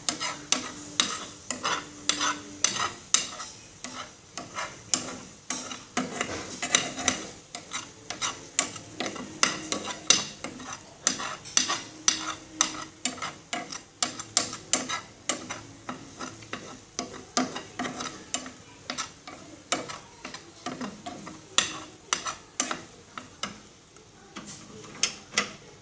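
A spoon stirring a thick, nearly set flour-and-sugar slime mixture in a wok on the stove, scraping and tapping against the pan in quick irregular strokes, about two or three a second.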